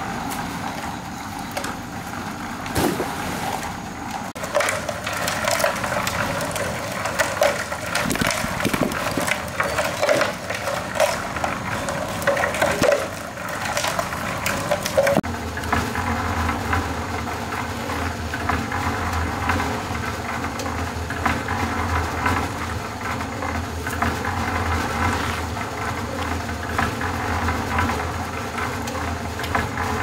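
Irregular crunching and clattering, then from about halfway a motor running steadily with a low hum.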